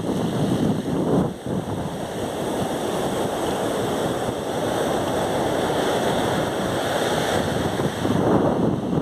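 Ocean surf washing on a beach, a steady rush with wind buffeting the microphone; the rush dips briefly about a second and a half in and swells again near the end.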